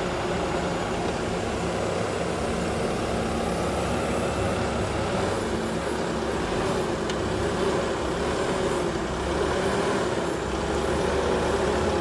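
Skid steer's diesel engine running steadily.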